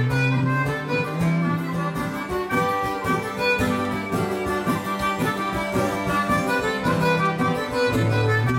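Concertina and acoustic guitar playing an instrumental passage together: the concertina holds reedy sustained notes over strummed and picked guitar chords with moving bass notes.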